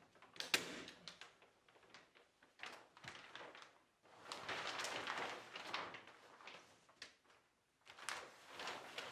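Heavy black-and-white poly sheeting (panda film) crinkling and rustling in irregular bursts as it is pulled taut and pressed against a wall, with a loud sharp snap about half a second in from a staple gun fixing it along the top.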